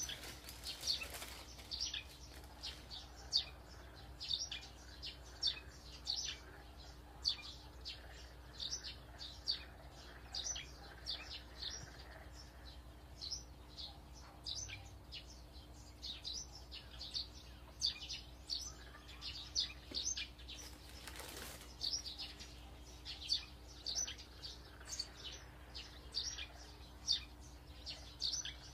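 A small bird chirping over and over: short, high, falling chirps about one or two a second, pausing now and then, over a faint steady hum. A brief rustle comes about 21 seconds in.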